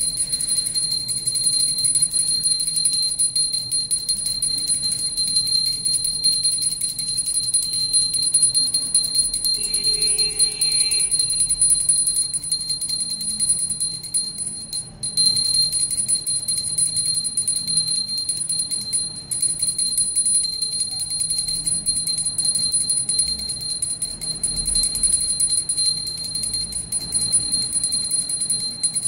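Brass puja hand bell rung continuously, its clapper striking rapidly so the high ringing never dies away, with a brief pause about halfway through.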